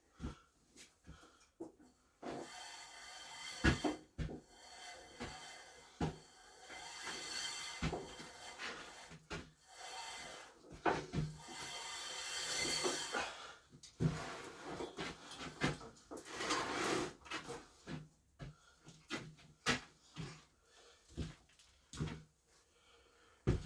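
Hands-on shop work: scattered knocks and clunks, with long stretches of scraping and rubbing in the first half and a shorter one later.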